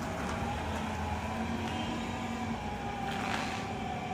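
Steady vehicle noise: a motor running with a low rumble and a faint whine that slides slowly down in pitch.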